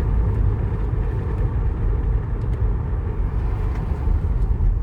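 A 2010 Toyota Sienna's 3.5-litre V6 runs steadily at idle with a low rumble, while cylinder 5 misfires (code P0305).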